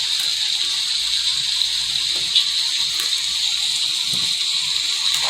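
Recorded rain playing in the background: a steady, even hiss of falling rain.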